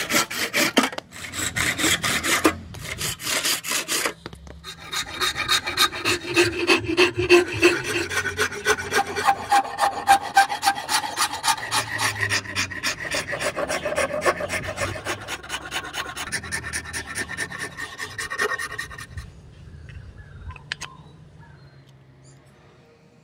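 A hand saw cuts through a wooden axe handle in quick back-and-forth strokes. After a brief pause, a flat metal file rasps rapidly back and forth over the wooden handle for about fifteen seconds, with a ringing edge to the strokes. The filing then stops and fades to quiet with a couple of faint clicks.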